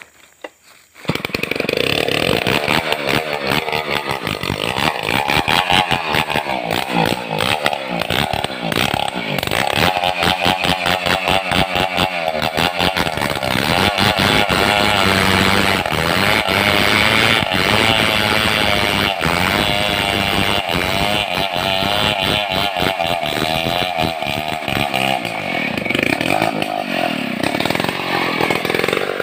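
Two-stroke chainsaw running at full throttle, rip-cutting lengthwise along a squared log of madang wood to make planks. It comes in abruptly about a second in, its pitch wavering under the load of the cut, and it eases off near the end as the bar comes out of the wood.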